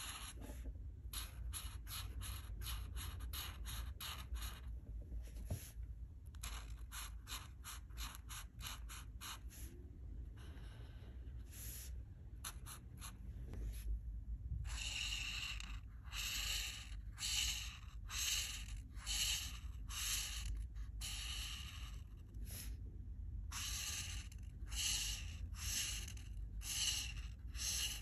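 Alcohol marker nib stroking back and forth on paper, colouring in: quick short strokes about three a second for the first ten seconds, then after a short pause longer, slower strokes about one a second.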